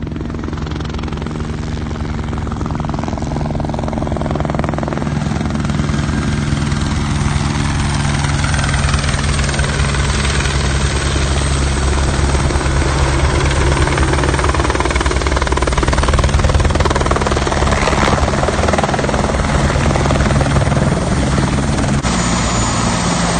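Helibras AS350 Esquilo rescue helicopter coming in low and setting down on grass, its rotor and turbine running loud and steady. The sound builds to its loudest about two-thirds of the way in, and a thin high turbine whine stands out near the end once it is on the ground.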